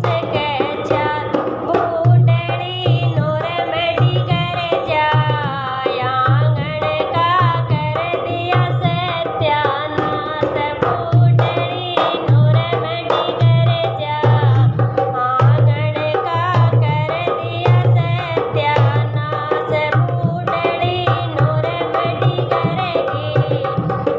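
Haryanvi folk song: a singing voice carrying a wavering, ornamented melody over a steady hand-drum beat.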